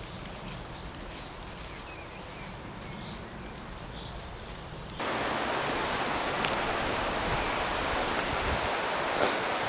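Quiet outdoor air with a low wind rumble on the microphone, then about five seconds in an abrupt switch to a louder steady rushing hiss of a rocky mountain stream running over stones.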